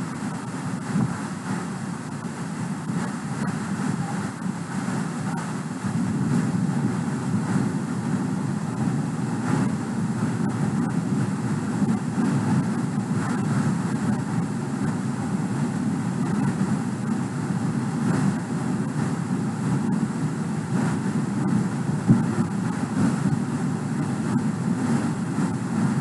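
Steady low noise with no distinct events, a little louder from about six seconds in.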